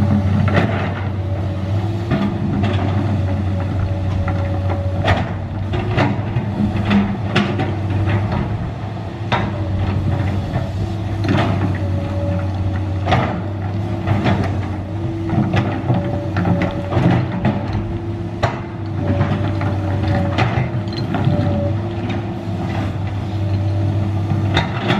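Komatsu PC200 hydraulic excavator digging rocky soil: its diesel engine running steadily under load, with a hydraulic whine that rises and falls as the boom and bucket move. Scattered clanks and knocks of the steel bucket against stones.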